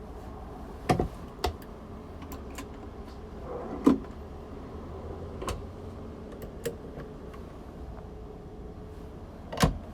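Fittings in a camper van's interior being handled: about six sharp knocks and clunks, the loudest about a second in, near the middle and near the end, over a steady low hum.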